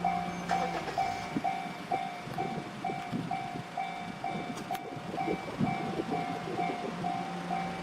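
Japanese railway level-crossing warning bell ringing a repeated electronic ding about twice a second, over the rumble and rattle of a train passing the crossing.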